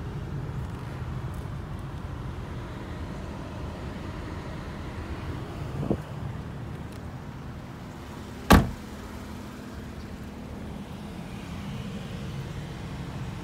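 Steady low rumble inside a 2016 GMC Acadia's cabin, with a light knock about six seconds in and a single loud, sharp thump a little past halfway.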